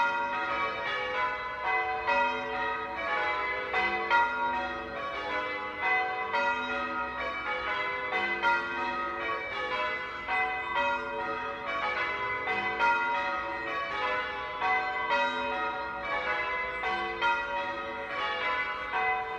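Church bells being change-rung: a steady, even run of strikes, about two to three a second, each bell ringing on into the next.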